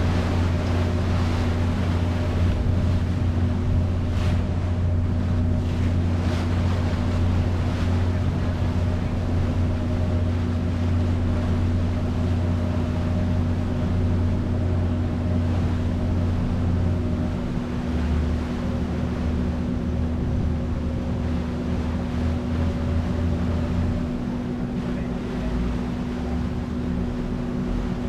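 Passenger ferry's engine running steadily under way, a low hum with fixed tones, over the rush of water and wind noise on the microphone. The engine's lowest note shifts a couple of times in the last third.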